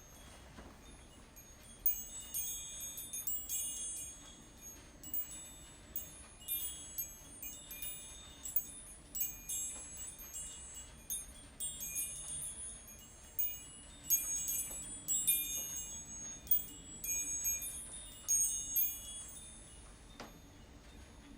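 Wind chimes rung in irregular runs of bright, high tinkling tones, starting about two seconds in and dying away near the end.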